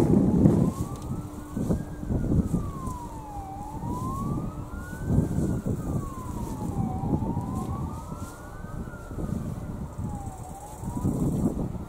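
An emergency-vehicle siren wailing, its pitch rising and falling slowly, about once every three and a half seconds. Wind rumbles on the microphone underneath, strongest at the start.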